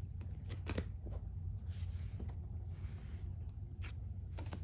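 Tarot and oracle cards being handled, drawn and laid down: a few light clicks and slides of card stock, the clearest just under a second in and near the end.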